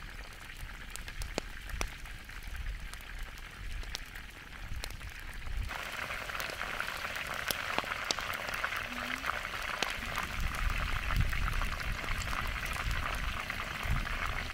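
Chicken pieces deep-frying in hot oil in a wide steel pan, a steady sizzle with many small crackles and pops. About six seconds in the sizzle becomes much louder and denser.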